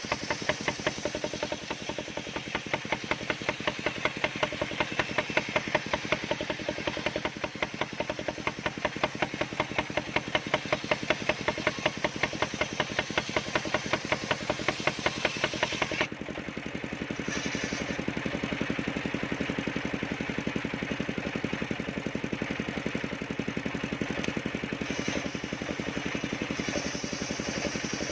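Engine of a mobile circular sawmill running with a rapid, even pulsing. About sixteen seconds in the sound changes suddenly: the higher, harsher part drops away and it runs on steadier and smoother.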